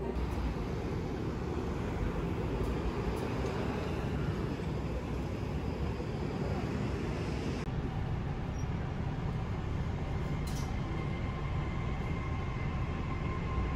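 Steady low rumble throughout. In the first half it is city street traffic; from about halfway it is a subway train running, heard inside the carriage.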